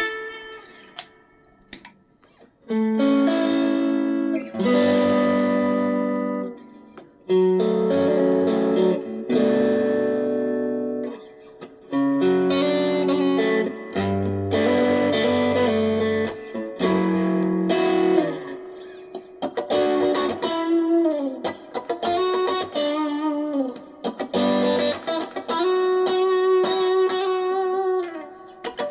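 Stratocaster electric guitar playing held chords and single-note phrases, with string bends in the second half. It is picked up raw by a mobile phone's microphone.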